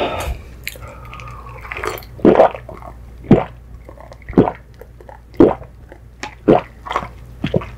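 A person gulping a drink from a plastic cup, about six loud swallows roughly a second apart, picked up close to the microphone.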